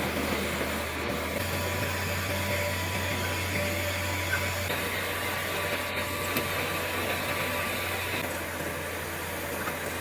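Orbital TIG welding machine running on a large flanged pipe, giving a steady hum and hiss.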